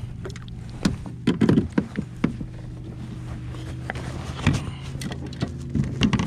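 Irregular knocks and thumps of handling on a Hobie Pro-Angler 14 kayak, about ten hits that are busiest between one and two seconds in, over a steady low hum.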